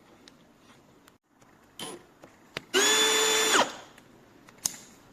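Bosch UniversalImpact 18V-60 cordless drill run briefly with no load. Its motor whine rises quickly to a steady pitch, holds for under a second, then winds down. A few light handling clicks come before it.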